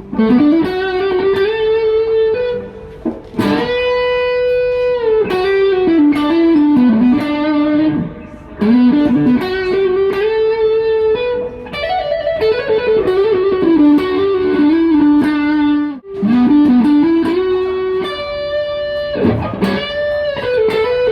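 PRS SE Hollowbody Standard guitar playing a single-note melody with sustained, ringing notes and bends and slides between pitches, with short breaks in the phrasing about eight and sixteen seconds in.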